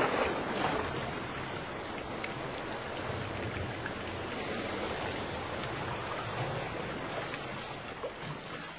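Sea waves washing: a steady rush of surf that eases off near the end.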